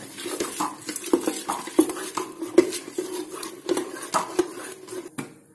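A hand stirring thick, fermented rice batter in a stainless steel bowl: irregular strokes, several a second, with light knocks against the steel. The stirring stops a little after five seconds in.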